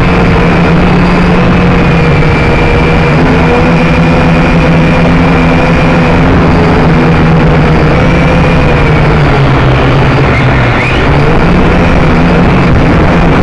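A drone's electric motors and propellers whining loudly and steadily, heard close up from the drone's own camera, the pitch wavering slightly up and down in flight.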